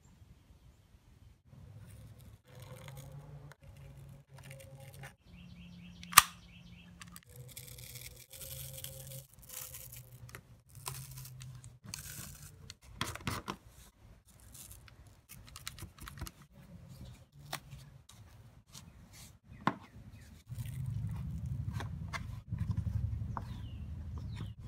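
Utility knife cutting through a sheet of poly foam in short scraping, tearing strokes, mixed with handling noises and one sharp click a few seconds in. Near the end, louder rubbing as the cut foam is pressed into a plastic lawn mower air filter cover.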